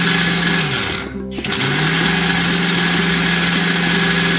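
Electric mixer grinder with a small stainless-steel jar running at full speed, grinding fennel, spices and sugar to powder. About a second in it winds down, stops briefly and spins back up: pulsed grinding.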